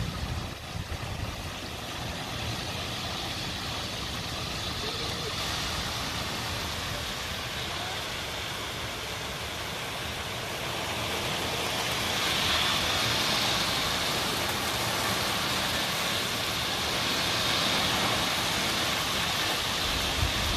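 Heavy rain pouring down steadily, a dense even hiss that grows a little louder about twelve seconds in.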